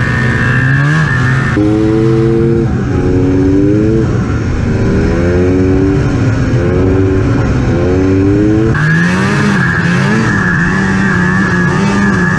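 Two-cylinder two-stroke snowmobile engine under way, its pitch rising and falling again and again as the throttle is worked. A steady high whine drops out early and comes back near the end.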